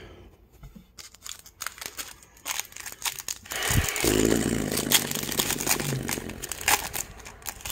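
Trading cards tapped and shuffled by hand with light clicks, then a foil card pack's wrapper torn open and crinkled from about four seconds in.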